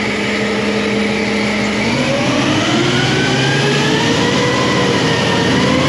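Truck engine idling, then revving up about two seconds in and held at higher speed, with a slight dip and rise again near the end. The engine is driving a hydraulic pump that is being tested for pressure and flow.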